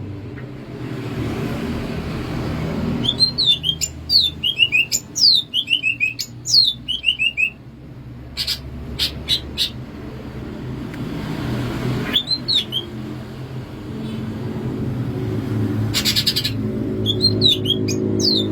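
A cucak ijo (greater green leafbird) singing: bouts of quick, downward-sliding whistled notes in rapid series, broken by a couple of short, harsh buzzing rattles. A steady low rumble sits under the song.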